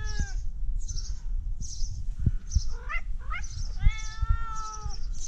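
Tabby cat meowing: a call trailing off at the start, two short rising meows about three seconds in, then one longer meow lasting about a second.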